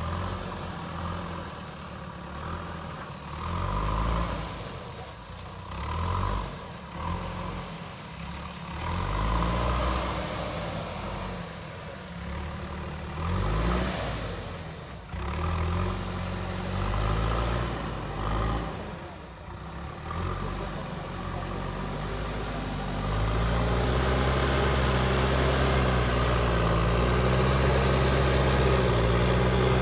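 JCB backhoe loader's diesel engine working, its pitch and loudness rising and falling every few seconds. From about two-thirds of the way through it runs steadier and louder.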